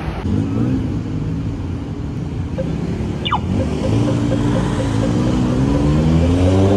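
Street traffic: motor vehicle engines running, one growing louder and rising in pitch as it speeds up toward the end. A short falling whistle sounds about three seconds in.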